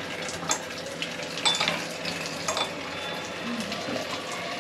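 Water running steadily into a stainless steel sink, with a few light clinks of a drinking glass.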